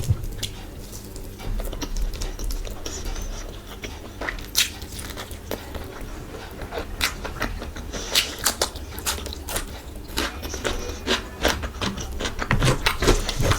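Close-up eating sounds: chewing and wet mouth clicks at an irregular pace, thicker around the middle and near the end.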